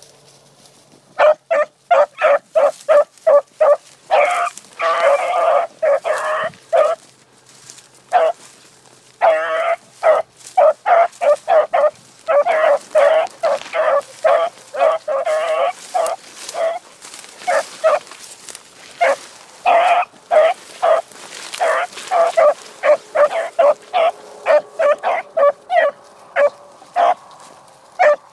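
A dog barking over and over in fast runs of sharp barks, about three or four a second, starting about a second in.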